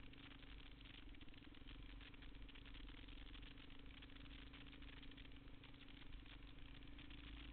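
Single-cylinder dual-sport motorcycle engine running steadily at an even, moderate speed, heard faintly from a camera mounted on the bike.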